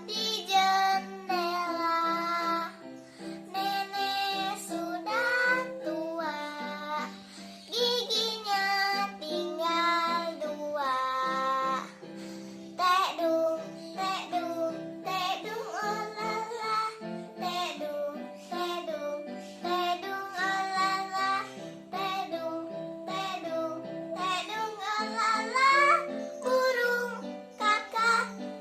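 A child singing a children's song over instrumental accompaniment, the sung phrases rising and falling and breaking between words.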